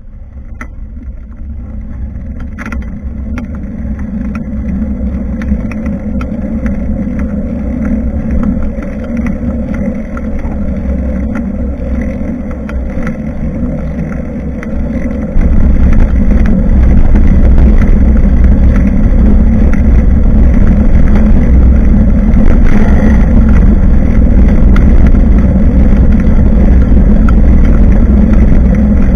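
Wind buffeting and road rumble picked up by a bike-mounted action camera's microphone as the bicycle rides along. The noise grows over the first several seconds, then jumps abruptly louder about halfway through, with scattered small knocks from bumps.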